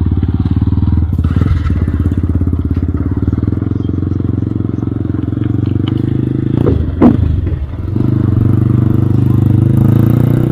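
Yamaha R15 V2's single-cylinder four-stroke engine running steadily at low speed, heard from the rider's seat. About seven seconds in the engine note drops for a moment, with a single sharp thud, then it picks up again.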